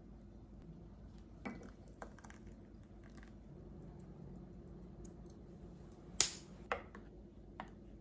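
Small clicks and knocks of a bottle and a cinnamon shaker jar being handled over a mug on a kitchen counter, over a faint steady hum. The loudest is a sharp click about six seconds in, followed by a smaller knock.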